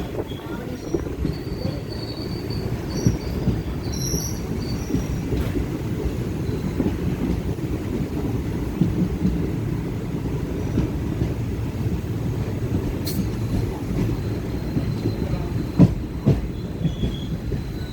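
Train running on its rails: a steady low rumble with scattered clicks of the wheels, and a few faint high wheel squeals in the first few seconds.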